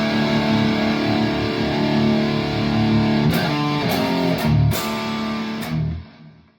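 PRS SE Tremonti electric guitar through a high-gain Bogner Uberschall amp and speaker cabinet, playing lead: held notes ring out, a few new notes are struck past the middle, and the sound dies away to silence near the end.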